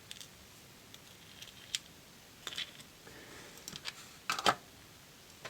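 Scattered light clicks and taps of small metal parts from a disassembled Robur safe deposit box lock being handled with tweezers, the loudest pair about four seconds in.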